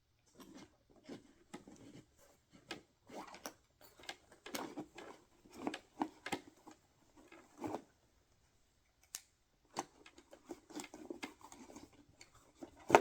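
Hand tools being handled and slid into the pockets of a nylon tool bag: irregular rustling and small clicks, with one sharp click near the end.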